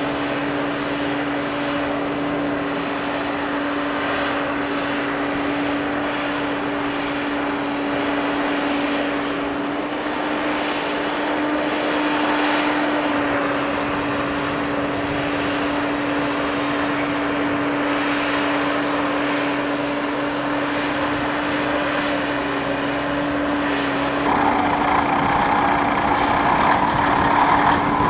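A heavy engine running steadily with a constant hum. Near the end it gets louder and rougher.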